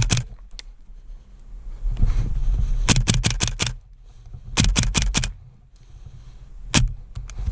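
VFC SCAR-H gas blowback airsoft rifle firing: a couple of single shots, then two fast strings of five or six shots about three and four and a half seconds in, and one more shot near the end. Low wind rumble on the microphone lies under it.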